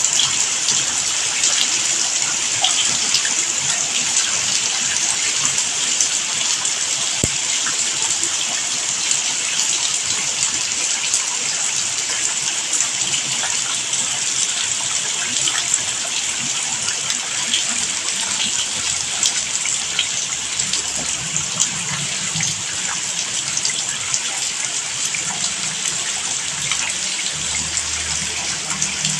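Steady rain falling, a dense even hiss with countless small drop ticks.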